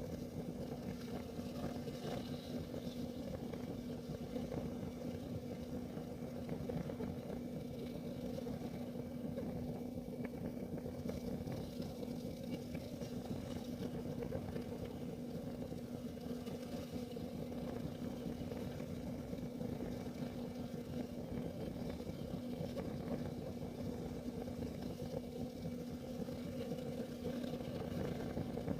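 Kerosene heater burning steadily: an even, low rumble with a faint constant hum running through it.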